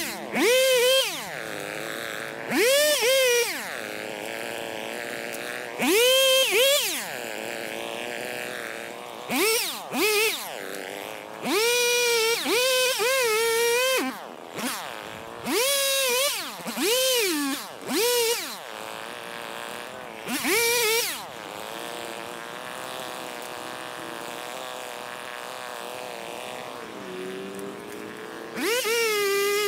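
Chainsaw in a sped-up recording, revving up and falling back in about nine short bursts and idling in between.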